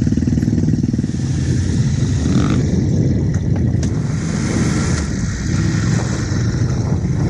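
Big adventure motorcycle's engine running steadily with a low, throbbing beat, heard from on the bike.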